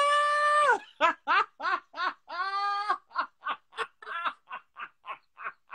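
A man laughing hard: a long high-pitched cry, then a run of short bursts of laughter, about four a second, broken by another drawn-out note about halfway through, trailing off toward the end.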